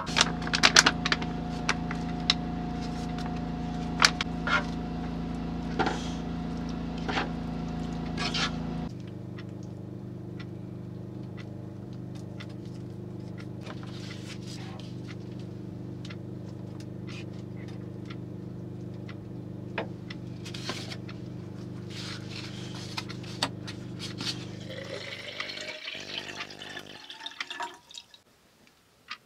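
Canned mackerel heating in a nonstick pan on an electric hot plate, with a spatula clicking and scraping against the pan over a steady electrical hum. Near the end, water is poured into a metal bottle-style electric kettle, its pitch rising as it fills.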